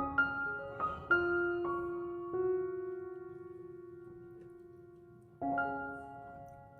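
Soft background piano music: single notes and chords struck one after another, each ringing and slowly fading, with a fresh chord about five and a half seconds in.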